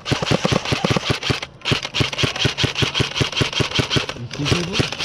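Airsoft gun firing on full auto: long strings of rapid shots at about nine a second, with a short break about a second and a half in and a stop a little after four seconds.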